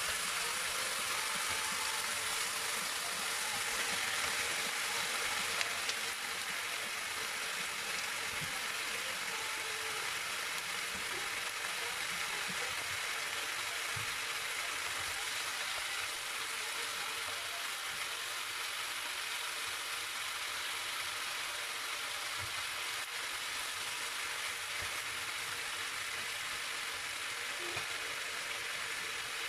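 Chicken pieces sizzling steadily in a frying pan with onion and garlic, a little louder in the first several seconds while they are stirred with a wooden spatula.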